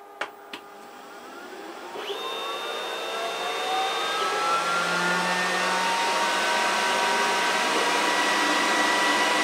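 Glowforge laser cutter's fans spinning up as a job starts: a rush of air that grows steadily louder over about six seconds, with whining tones that glide upward and then hold steady. Two faint clicks come right at the start.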